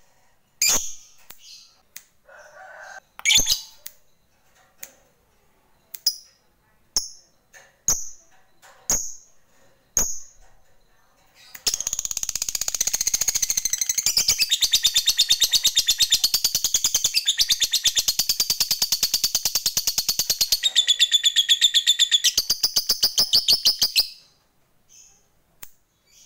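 A yellow lovebird gives sharp single chirps about once a second. About halfway through it breaks into one long, very fast chattering trill lasting about twelve seconds, then goes back to a few chirps. That long unbroken chatter is the 'ngekek panjang' that keepers prize in a fighter lovebird.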